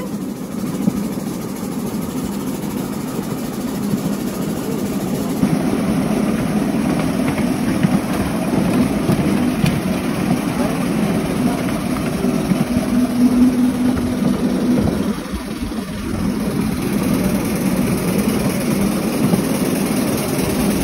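Miniature ride-on train running along its track: a steady rumble from the locomotive and the wheels, with a brief hum partway through and a short lull about three-quarters of the way in.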